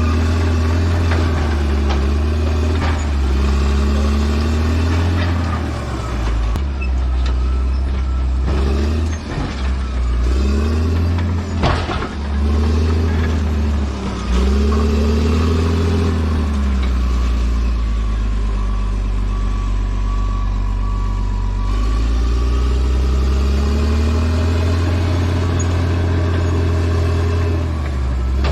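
Bulldozer's diesel engine working under load, its pitch rising and falling again and again as the machine pushes and eases off. There is a sharp knock about twelve seconds in, and a beeping tone about two-thirds of the way through.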